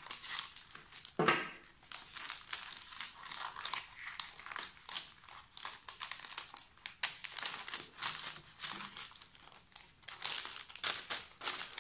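Clear plastic sleeve of a scrapbooking paper pad crinkling as it is opened and handled, with the sheets sliding against it: irregular crackles and rustles, with one fuller rustle about a second in.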